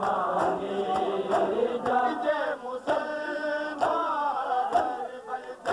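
Men chanting a Shia mourning lament (noha) together, with sharp slaps of hands beating on chests (matam) every half second to a second.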